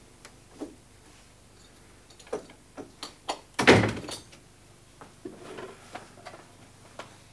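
An office door being handled, with a few light clicks and knocks, then one loud thunk about three and a half seconds in as it shuts. Softer knocks and a brief scuff follow.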